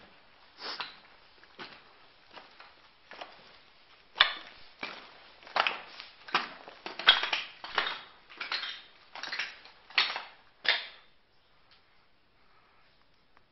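Footsteps crunching on the gravel and rubble of a bunker floor at a steady walking pace, faint at first, louder from about four seconds in, then fading out near the end.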